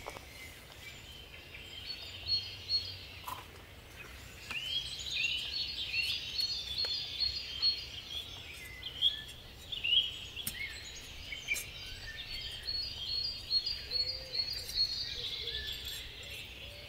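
Garden songbirds singing, a busy run of short high chirps and trills starting about four seconds in, with a few short knocks and scrapes of a hand trowel in soil.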